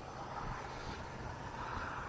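Steady distant engine drone: a low rumble with a hiss above it that grows a little louder near the end. No distinct short calls stand out.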